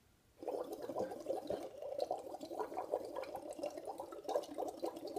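Breath blown through a pipette into red cabbage juice in an Erlenmeyer flask, bubbling steadily, starting about half a second in. The exhaled carbon dioxide is acidifying the cabbage-juice indicator and turning it lighter.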